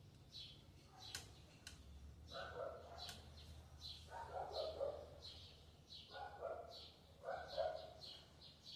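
A bird chirping over and over, short high falling notes about twice a second, while a dog barks several times in the background.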